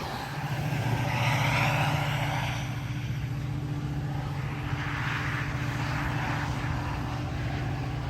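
Metra commuter train's diesel locomotive running with a steady low hum as the train departs, with a rushing hiss that swells and fades twice over it.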